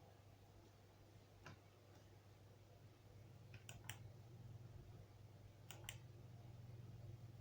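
Near silence with a low steady hum and a few faint clicks: a single click about a second and a half in, then two quick pairs of clicks.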